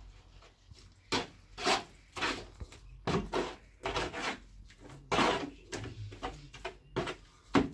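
Wood being handled: a string of uneven knocks and short scrapes of wood against wood, about eight in all.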